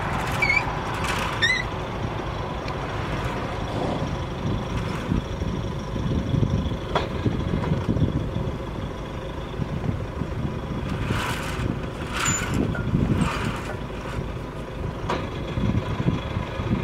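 Sailboat's engine running steadily as the boat motors along, under a low, uneven rumble, with a few short high chirps about a second in and some brief scraping noises around the middle.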